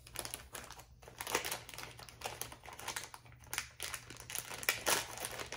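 Crinkling and irregular small clicks of a bracelet and its packaging being handled.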